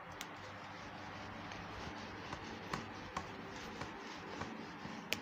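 A whiteboard duster rubbing marker off a whiteboard, faint, with a few light taps and clicks, the sharpest just before the end.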